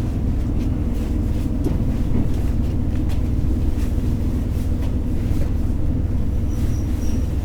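Running sound of a JR Hokkaido H100 diesel-electric railcar: a steady low rumble from the engine and running gear, with light scattered clicks from the wheels and track.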